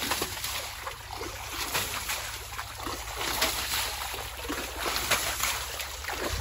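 Water thrown from a plastic jug splashing against a tractor's rear hitch and tyres, in a run of irregular splashes and sloshing of shallow water.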